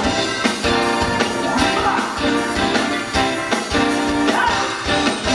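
Music from a stage musical number: a rock-and-roll band with a steady driving beat.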